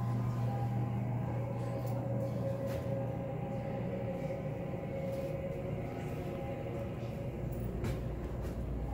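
Ambient drone background music: a steady low hum with a few held higher tones, and a few faint clicks.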